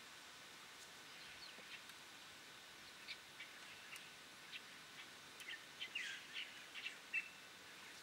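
Birds chirping: scattered short chirps and brief calls over a faint hiss, coming thicker in the second half, with the loudest chirp near the end.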